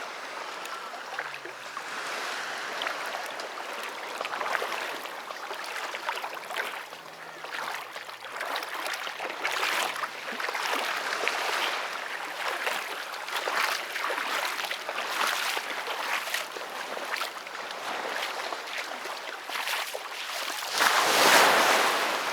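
Sea waves breaking and washing up the beach in a continuous, surging hiss, with a louder surge of surf near the end.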